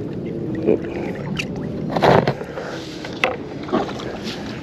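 Water sloshing and lapping against the side of a small boat as a mulloway is released by hand, with a louder splash about two seconds in and a few small knocks.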